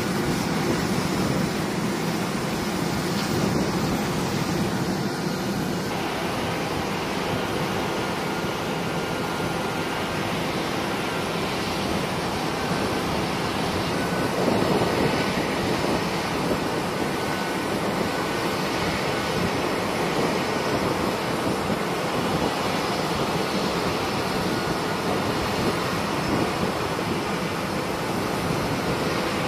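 KC-135 Stratotanker jet engines running steadily on the ground: an even rushing noise with a faint constant whine.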